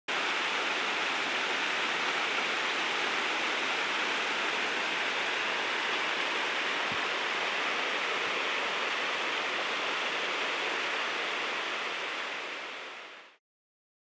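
Waterfall: a steady rush of falling water, fading out near the end.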